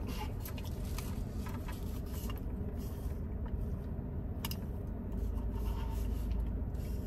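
Faint scattered clicks and rustles over a steady low hum, which grows a little stronger about five seconds in.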